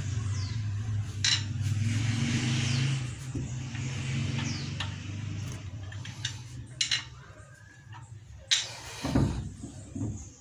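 Metal tools and car parts clinking and knocking during hand work on a car's front brake and wheel, with a heavier knock about nine seconds in. A steady low hum runs under the first half and fades out.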